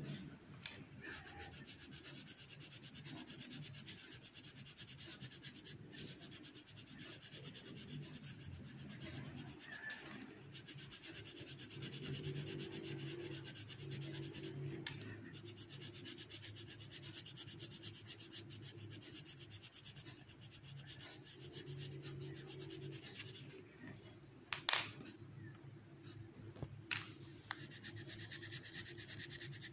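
Coloured pencil shading on paper: the lead scratches and rubs steadily against the sheet as colour is layered to hide the pencil streaks. A sharp knock near the end is the loudest sound.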